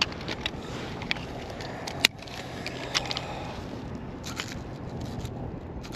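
Handling noise as a smallmouth bass is clamped in a plastic lip-grip and lifted aboard a kayak: scattered small clicks and scrapes, with one sharp click about two seconds in, over a steady low background rumble.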